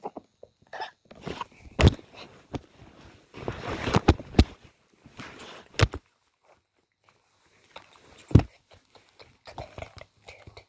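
Handling noise on the camera: rubbing and scraping against it, broken by several sharp knocks and bumps as it is moved about and things are held against it.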